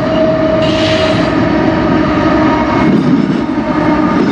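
CSX diesel freight locomotives passing close, engines running with a steady whine over a heavy rumble.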